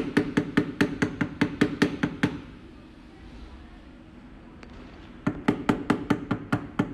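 Butt of a plastic-handled screwdriver tapping rapidly on the steel type holder of a tube tail sealing machine's die, about five sharp metallic knocks a second, knocking the date-code type pieces level. The tapping stops for about three seconds partway, then starts again.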